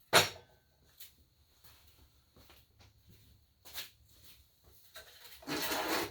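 Metal parts of a miter saw stand being handled and shifted: a sharp clack right at the start, a few lighter knocks, and a short rattling scrape near the end.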